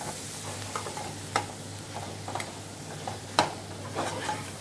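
Masala-coated goat liver sizzling as it fries on high heat in a pressure cooker, stirred with a perforated metal ladle that knocks and scrapes against the pot several times, the loudest knock a little past three seconds in.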